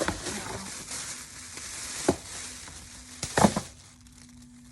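Packaging crinkling and rustling as it is handled, with two sharper clatters about two and three and a half seconds in, the second the loudest.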